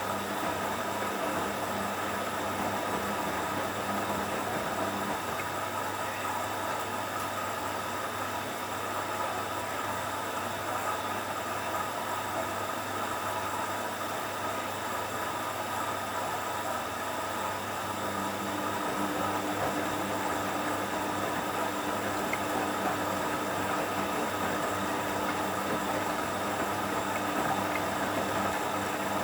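Hoover washing machine running its first rinse: a steady motor hum with a haze of noise. A low tone in the hum drops out about five seconds in and a tone comes back around eighteen seconds.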